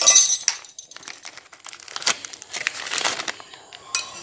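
Clear plastic packaging crinkling and rustling as a wrapped metal part is handled and unwrapped, in irregular bursts: loudest right at the start and again about two to three seconds in.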